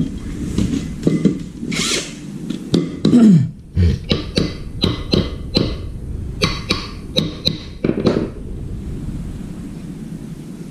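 Cordless drill run in short bursts on its trigger, the motor whirring up and winding down again and again, with clicks from handling it.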